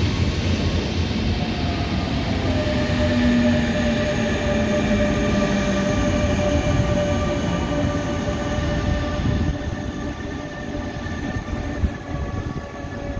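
Electric Intercity 2 train with its Bombardier TRAXX electric locomotive passing close by: a steady rumble of wheels on rail with a whine of several steady tones on top. The sound gets quieter in the last few seconds, with one sharp click near the end.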